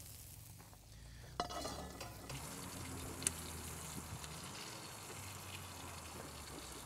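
Radicchio quarters and lemon halves sizzling in oil in a hot cast-iron skillet. The faint, steady frying hiss starts suddenly about a second and a half in, as the pan goes into the wood-fired oven, with one sharp tick about three seconds in.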